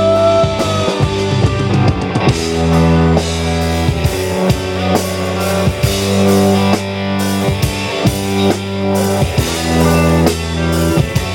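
Rock band playing an instrumental passage between sung lines: electric guitar and bass over a steady drum-kit beat, with a sustained guitar note dying away in the first second.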